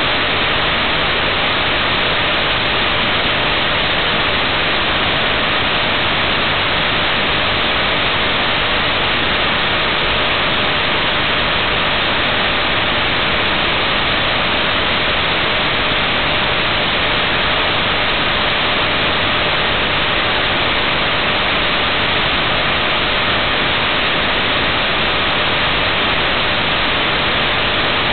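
Steady static hiss of an untuned analog television picking up no signal, unchanging throughout, with a faint steady tone under it.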